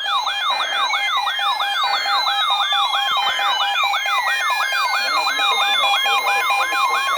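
Layered electronic siren and alarm tones: a rapid warble of falling sweeps about four times a second over a steady tone, a two-tone beeping pattern, and slow falling glides, rising again near the end.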